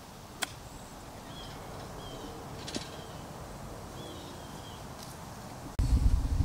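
A golf iron strikes the ball with one sharp click about half a second in, followed by a fainter tap a couple of seconds later. A bird chirps several times. Near the end, wind buffeting the microphone starts abruptly and is the loudest sound.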